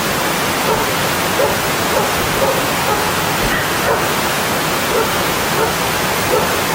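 Mountain stream water rushing steadily over rocks, with small gurgling notes scattered through the rush.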